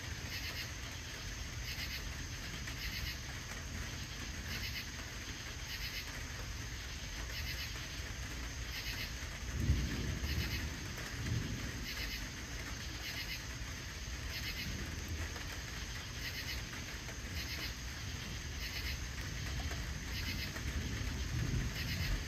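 Crickets chirping in a steady, evenly spaced rhythm, well under a second between chirps, over a low distant rumble of thunder. The rumble swells briefly about ten seconds in and again near the end.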